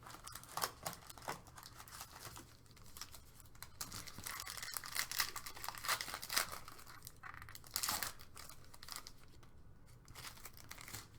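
Foil trading-card pack being torn open and its wrapper crinkled by hand, an irregular crackling with a few sharper tearing bursts, busiest through the middle.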